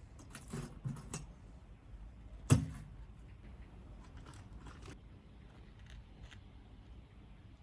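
A few light clicks and taps, then one sharp, loud knock about two and a half seconds in, followed by faint scattered ticks.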